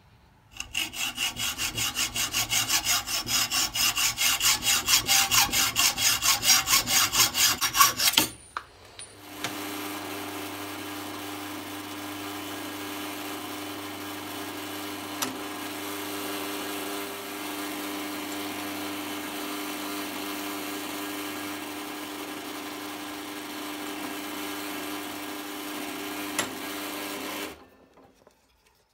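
Hand hacksaw cutting in a bench vise, about four even strokes a second, growing louder and stopping after about eight seconds. Then a bench drill press runs steadily, drilling pin holes through hardwood handle scales, and cuts off shortly before the end.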